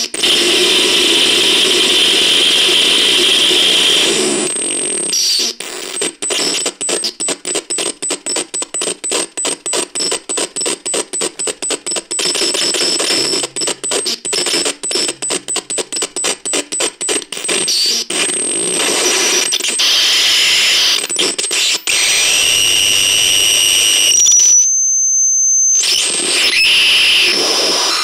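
Harsh electronic noise and static with steady high whining tones, from the device demonstrated as the "Radio Vape". For about ten seconds in the middle it stutters in rapid on-off pulses, about three or four a second, before going back to a continuous hiss and whine.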